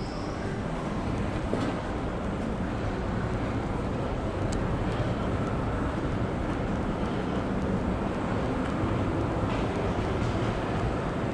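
Steady low rumble of an underground metro station's background noise, with a faint click about four and a half seconds in.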